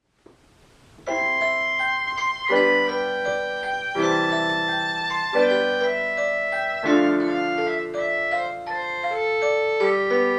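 Piano playing a slow introduction of held chords, beginning about a second in and changing every one to one and a half seconds.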